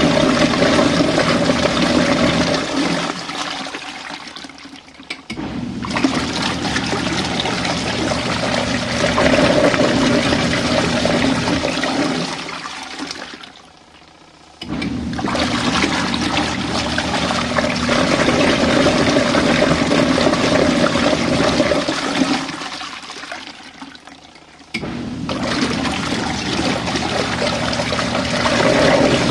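RV washing machine running a rinse, with water sloshing and rushing loudly in the drum. About every ten seconds the sound fades to a lull, then starts again abruptly, three times in all, as the drum stops and restarts.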